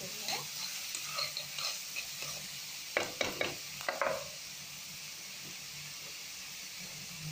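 Chopped onions sizzling in hot oil in a frying pan while a spatula stirs and scrapes them, with a few sharp scrapes against the pan about three to four seconds in. After that only the steady sizzle goes on.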